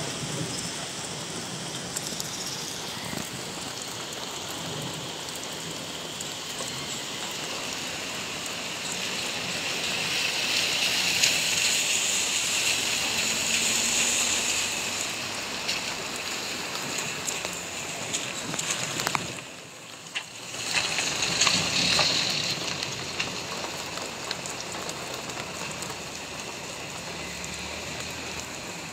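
Heavy rain pouring down and pattering on hard surfaces, a steady hiss that grows louder for a few seconds in the middle and drops out briefly about two-thirds of the way through.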